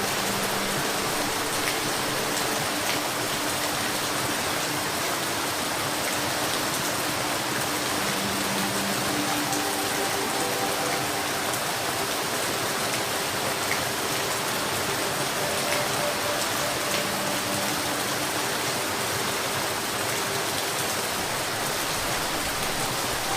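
Steady rain, an even hiss of falling water, with faint low steady tones coming and going underneath.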